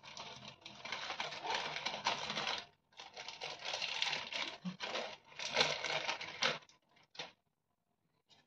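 Plastic wrapper of a Maggi instant-noodle packet crinkling as it is torn open and handled, in irregular bursts that stop about two-thirds of the way through.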